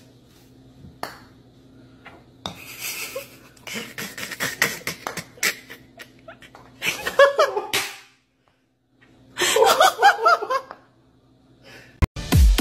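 People laughing in two loud bursts, after a run of sharp clicks from a putter striking golf balls on a putting mat.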